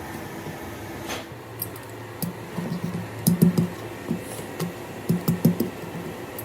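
A series of irregular knocks and taps, clustered in the middle of the stretch, over a steady low hum.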